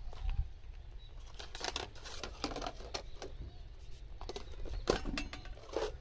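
Pot of oden broth bubbling over a wood fire: irregular small pops and crackles, over a low steady rumble.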